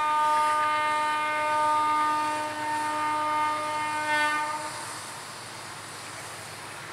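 Diesel freight locomotive's air horn, an MLW, sounding one long steady blast that cuts off about four and a half seconds in; a faint steady rumble of the approaching train follows.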